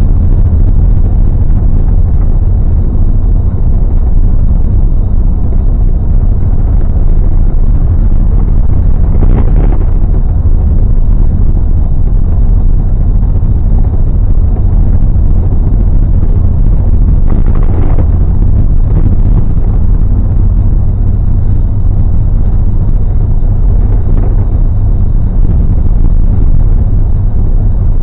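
Bus travelling at speed, heard from on board: a steady low rumble of road and engine noise, swelling briefly a few times.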